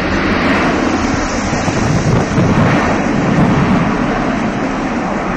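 Jet noise from an Airbus A310-304's two General Electric CF6-80C2 turbofan engines running, steady and loud, swelling a little in the middle, with wind buffeting the microphone.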